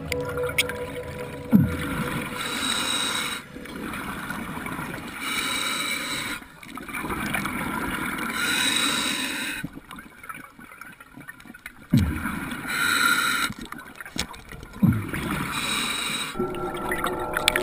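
Scuba diver breathing through a regulator: about five hissing inhalations, each with a faint whistle, alternate with low bubbling exhalations. A few sharp knocks stand out.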